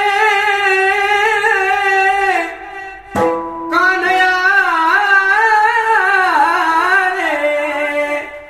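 A man singing a Marathi gavlan abhang solo in a high, sustained and ornamented melody, held on long notes and winding up and down. The line breaks off about two and a half seconds in, a single sharp mridang (pakhawaj) stroke rings out just after, and the singing resumes, tailing off near the end.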